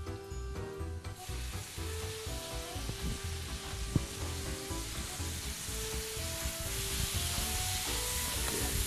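Chopped onion frying in oil in a frying pan, stirred with a silicone spatula. About a second in, water goes into the hot pan and a steady sizzle starts suddenly and keeps on.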